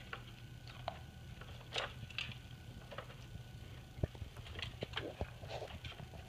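Plastic dog puzzle toy being nosed and pushed by a puppy: irregular small clicks, taps and knocks of its plastic pieces and base, with one sharper knock about two-thirds of the way through.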